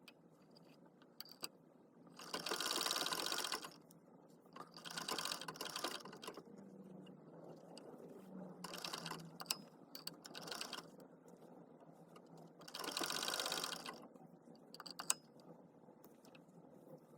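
Electric sewing machine stitching a seam through layers of cloth, running in four short bursts of a second or so each, with small clicks and handling noises in the pauses between them.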